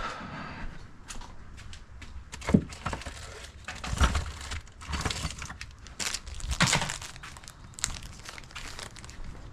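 Tire levers clicking and knocking against a bicycle wheel rim while a stiff tire is forced back onto it. The knocks are irregular, and the sharpest comes about two and a half seconds in.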